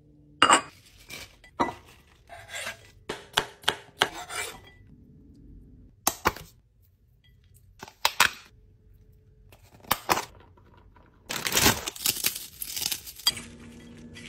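Kitchen food-prep sounds: scattered short knocks and clicks of containers and utensils against a bowl, then about two seconds of continuous scraping and rustling near the end.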